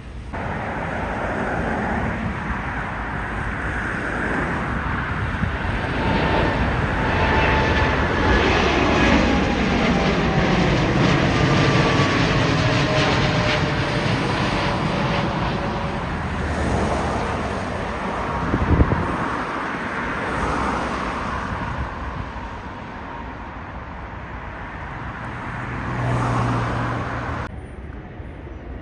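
Jet airliner passing close by: a loud roar that swells and then eases, with an engine whine that falls in pitch as it goes past. There is one brief sharp knock about nineteen seconds in.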